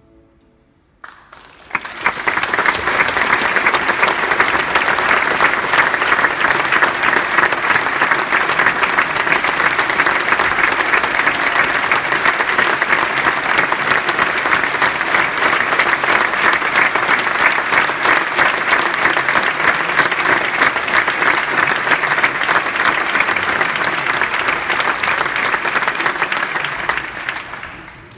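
Large concert-hall audience applauding. The applause starts about a second and a half in, after the last orchestral notes have died away, holds steady and fades near the end.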